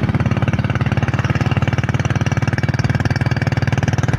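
A freshly serviced motorcycle engine idling steadily with an even, rapid beat, still not warmed up.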